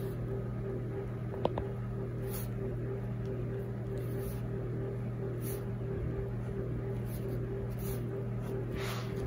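A pen scratching across drawing paper in short strokes, over a steady electrical hum with a faint pulsing tone. One small click about a second and a half in.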